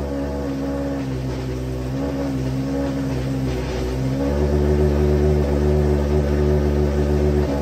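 The BAR Honda F1 car's bespoke billet engine idling cold in neutral. Its pitch wavers for the first few seconds, then settles steadier and a little louder about four seconds in.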